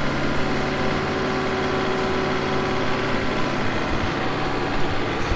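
Skid steer engine idling steadily.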